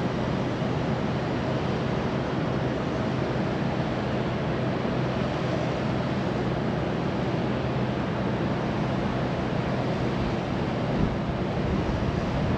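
Steady wind buffeting the microphone, with the steady hum of a quadcopter drone's propellers overhead as it flies in the wind.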